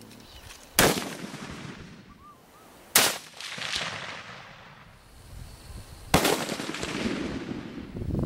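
Three hunting rifle shots, the first two about two seconds apart and the third about three seconds later, each followed by a long rolling echo that fades away.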